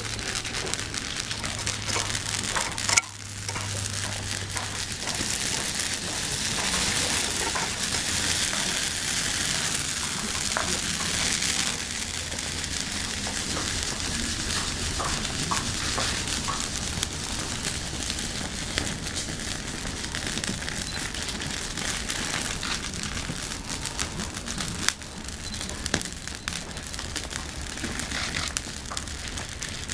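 Wood fire burning on stone paving, a steady crackling hiss with scattered pops that is strongest a few seconds after it is lit. A single sharp click about three seconds in.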